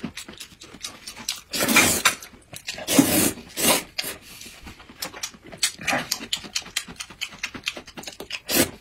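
A man slurping and chewing noodles close to the microphone: quick wet mouth clicks throughout, broken by several short, loud slurps and puffs of blowing on the hot noodles, the loudest about two and three seconds in and again near the end.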